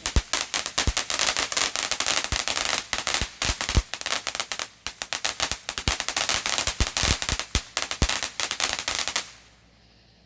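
A consumer firework going off in a rapid, dense run of sharp crackling pops with a few louder bangs among them, for about nine seconds, then stopping abruptly.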